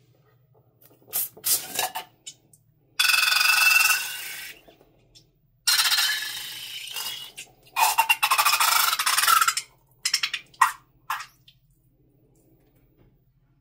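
Scissors snip a rubber balloon's neck a few times, then thick slime is squeezed out of the balloon onto a plastic tray in three long squelching, spluttering gushes. A few short wet clicks follow near the end.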